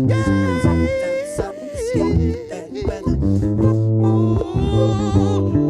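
Funk music: an electric bass plays a low line of held and short notes under the song's backing, with a voice singing over it.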